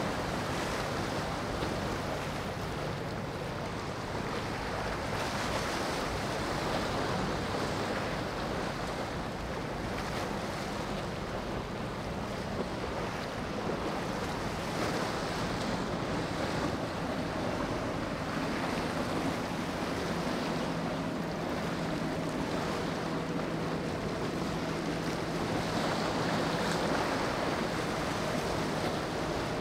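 Surf washing against a rock jetty with wind on the microphone, a steady rushing noise. A faint steady motor hum sits underneath in the second half.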